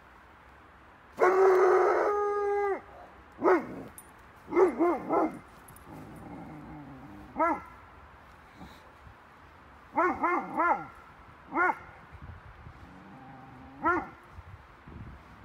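Curly-coated retriever barking at an unfamiliar figure: one long, drawn-out call about a second in, then about ten short barks, several coming in quick runs of three.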